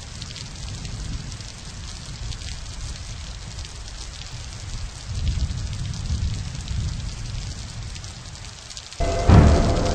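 Rain falling, with a low rumble underneath that swells about halfway through. About nine seconds in, loud music cuts in abruptly.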